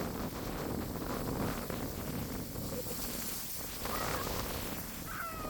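Wind buffeting the microphone, a steady rushing noise. A short chirping call rises and falls near the end.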